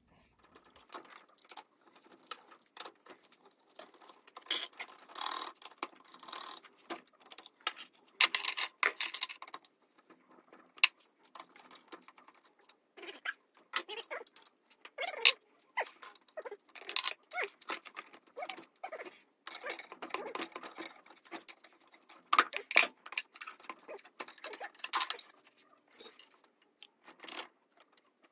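Irregular metallic clinks, taps and rattles of hand tools and loose parts as an NP207 transfer case is unbolted and its case split in half.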